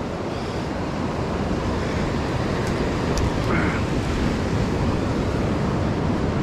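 Steady wash of ocean surf breaking on the beach, with wind rumbling on the microphone.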